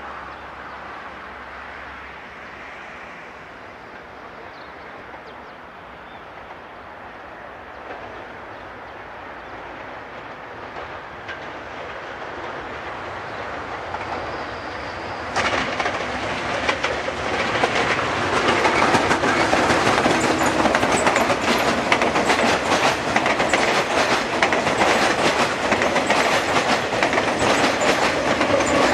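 Metrorail electric multiple-unit commuter train approaching and then passing close by, its wheels clacking rapidly over the rail joints. The sound grows steadily and jumps louder about halfway through.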